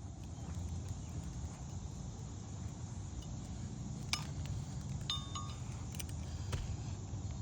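A few light metallic clinks, one of them briefly ringing, over a steady low rumble like wind on the microphone.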